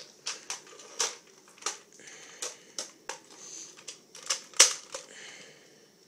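Irregular sharp plastic clicks and taps, about a dozen, as a yellow Nerf revolver-style blaster's cylinder and body are handled. The clicks are loudest about a second in and again a little after four and a half seconds, and die away near the end.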